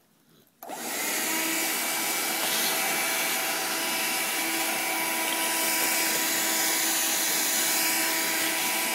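Shark vacuum cleaner switched on about half a second in, then running steadily with a motor whine over its air rush.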